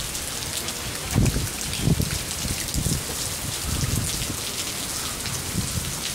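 Heavy rain pouring down on pavement in a thunderstorm, a steady hiss, with a few low thumps about one and two seconds in.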